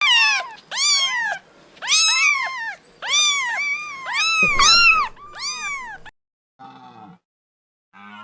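An animal giving short meow-like calls, each rising then falling in pitch, in quick groups for about six seconds, with fainter calls near the end.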